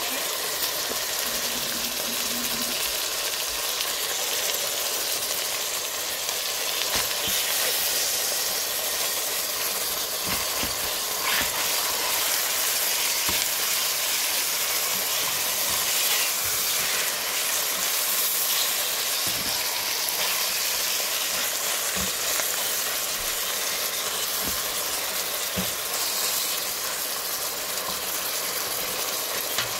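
Chicken pieces sautéing with garlic, onion and ginger in a stainless steel pot: a steady sizzle, with a few faint clicks.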